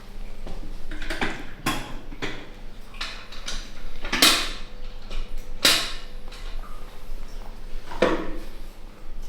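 Short knocks and creaks from hands-on manual therapy on a treatment table, about five of them spaced a second or more apart. The loudest two come about four and five and a half seconds in, with a last one near the end.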